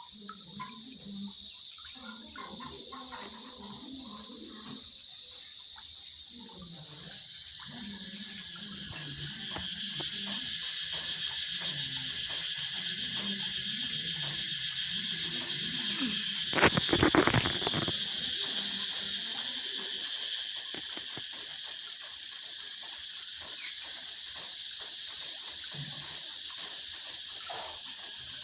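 Cicadas singing in a continuous, high, steady drone. A brief knock comes about two-thirds of the way through.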